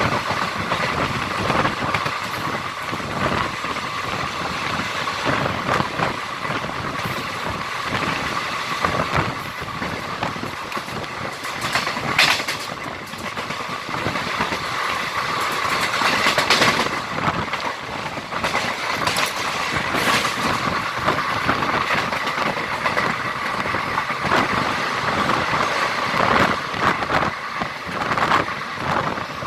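Siddhaganga Intercity Express train running along the track: steady wind and running noise with a constant rapid clatter of wheels on the rails. Two louder clanks come about twelve and seventeen seconds in.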